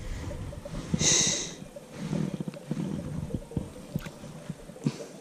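Close handling noise: clothing rustling and light clicks as fingers bait a fishing hook, with one brief hiss about a second in.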